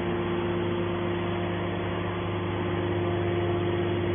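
Steady hum of a scrap metal baler's hydraulic power unit running, with a few steady tones over an even mechanical noise.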